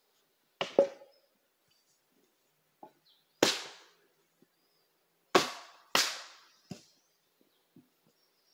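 Chopping blows of a blade biting into firewood as it is split: four sharp, loud cracks at uneven intervals, the last two close together, with a few lighter knocks in between.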